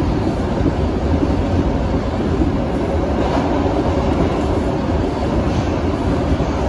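Bombardier R142 subway car running at speed, heard from inside the car: a steady rumble of wheels on rail and car body noise.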